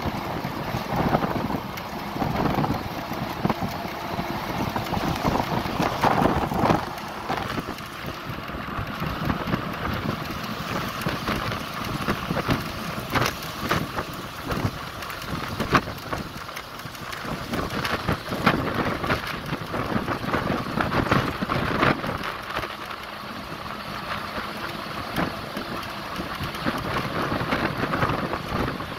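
Wind rushing and buffeting against the microphone at the open window of a moving vehicle, with the vehicle's road noise underneath; it comes and goes in uneven gusts.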